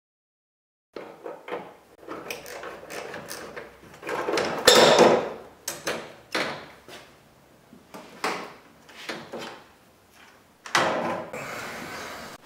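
Clicking, knocking and scraping as the last top fasteners are undone and the plastic front grille of a 2004 Dodge Ram is worked loose and pulled off, starting about a second in. There is a loud scrape about five seconds in and a longer rough scrape near the end as the grille comes free.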